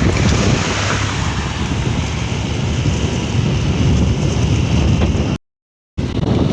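Wind rumbling on the microphone over vehicle road noise. The sound drops out completely for about half a second roughly five seconds in.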